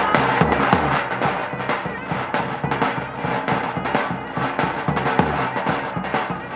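Clarinet and davul, the large double-headed bass drum, playing a lively folk dance tune: the clarinet carries the melody over a steady run of drum strokes.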